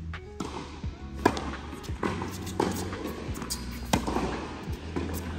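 A tennis rally on an indoor hard court: the ball is struck by rackets and bounces, giving a sharp pop every second or so. It plays over background music with a steady bass.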